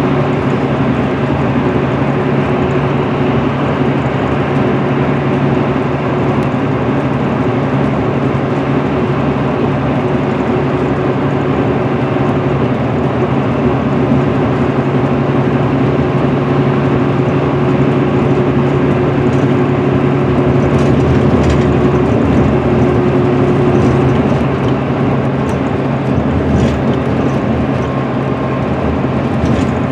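Cabin noise inside an MCI D4500CL coach cruising at highway speed: its Cummins ISM diesel runs with a steady low drone under loud, even tyre and road noise.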